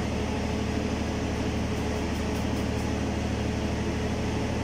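Steady low hum of an engine-driven electric generator running, with a constant drone and an even rushing noise over it.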